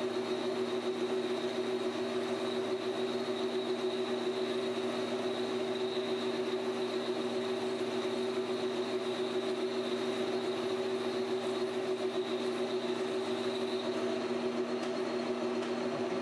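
PM1236T metal lathe running steadily while a boring bar cuts the bore of a titanium bar: a steady machine hum with a thin high whine that fades near the end.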